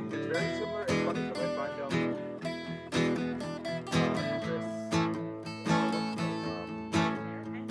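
Two acoustic guitars strummed together, one of them a twelve-string, with a strong strum about once a second over ringing chords.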